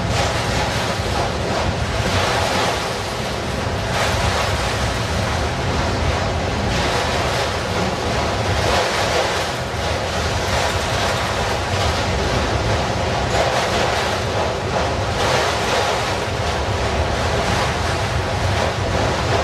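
Freight train of enclosed autorack cars rolling past close by: steady noise of steel wheels on the rails, swelling slightly every couple of seconds.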